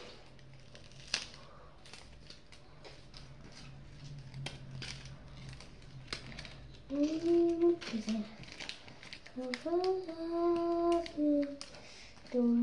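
A young girl humming a tune in short held notes, starting about halfway through. Before that there are only faint clicks and rustles of craft paper being handled.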